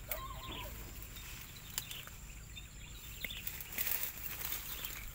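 Footsteps and brushing through forest undergrowth, with dry leaves and twigs crackling now and then underfoot, and a few faint high chirps behind.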